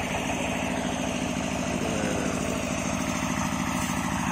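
An engine idling steadily, with an even, rapid chugging beat and no change in speed.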